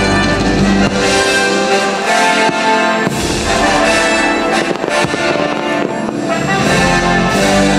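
Orchestral show music led by brass, with fireworks shells bursting over it.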